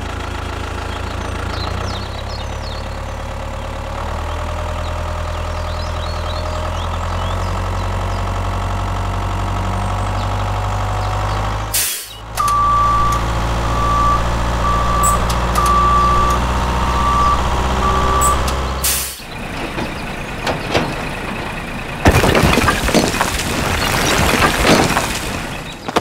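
Tractor engine running at a steady low rumble. It cuts out for a moment about halfway, then resumes with a reversing alarm beeping about once a second for some six seconds. Near the end the engine stops and a loud, rough rushing noise follows.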